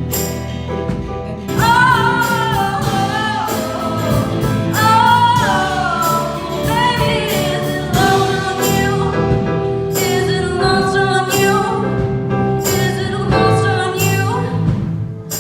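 A ballad sung with instrumental accompaniment: the voice slides through long, ornamented notes over steady chords. The music drops away near the end.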